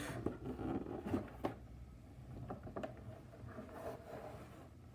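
Quiet room tone with a few faint small clicks and rustles in the first second and a half, then only a low steady hum.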